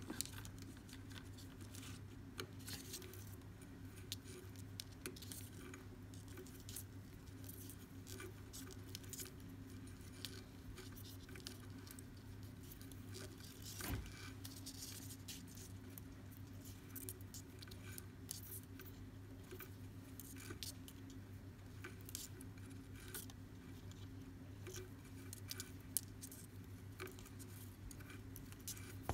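Faint scattered rustles and light ticks of macrame cord being handled and knotted by hand, over a steady low hum. One soft knock comes about halfway through.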